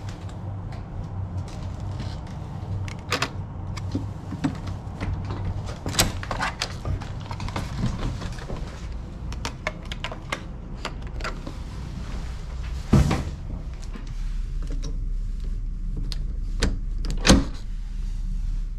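Clicks and knocks of a card-key hotel room door being unlocked and opened, with two louder thumps in the last third, over a steady low hum.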